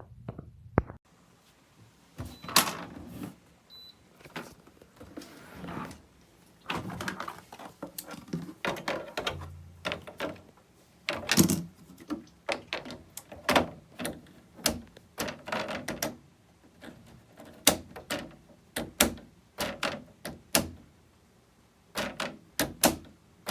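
A long run of irregular knocks, clicks and thuds, some loud, at uneven intervals, like objects being handled and set down.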